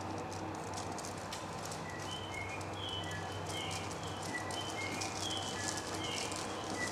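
Short, high, bird-like chirps in a step-like pattern that repeats every few seconds, starting about two seconds in: a station's recorded bird-call guidance sound. A steady low electrical hum runs underneath.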